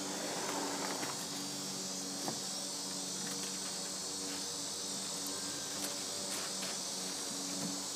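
Steady high-pitched insect drone, with a faint low hum beneath and a few soft clicks.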